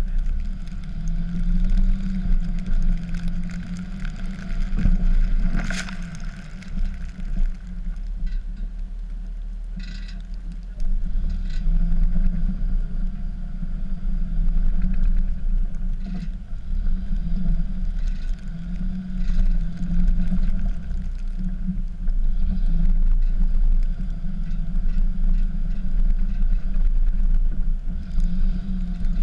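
Dodge pickup's Cummins turbodiesel engine running under load while plowing snow, its low rumble swelling and easing. A few sharp knocks sound over it, the loudest about six seconds in.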